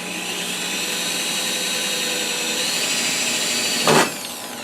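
Power drill running steadily, driving a self-tapping screw slowly into steel C-channel. A sharp, loud clack comes about four seconds in, then the motor pitch falls as it winds down.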